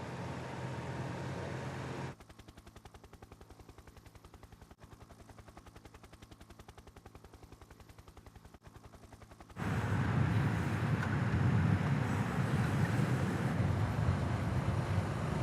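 Ambient race-broadcast sound of motor vehicles: a steady engine rumble and rushing noise, interrupted about two seconds in by a quieter stretch of rapid, evenly spaced pulsing that gives way, over halfway through, to louder engine rumble.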